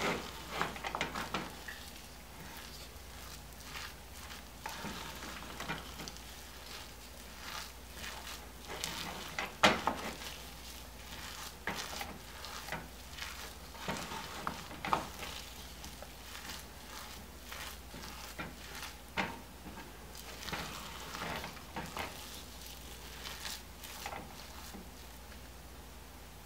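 Wooden spoon mashing soft, freshly pressure-cooked rice in a pressure cooker: irregular squishing strokes, with one sharper knock about ten seconds in.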